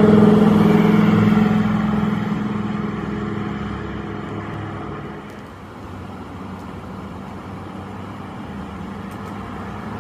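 A Lamborghini Huracán's V10 engine running loud and steady as the car pulls away, fading over about five seconds. After that, only steady road traffic noise remains.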